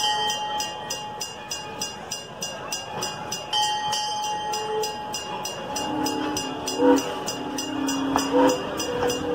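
Steam passenger train rolling slowly past, with a steady high whistle tone sounding twice in the first half and a lower whistle chord of several tones from about six seconds in.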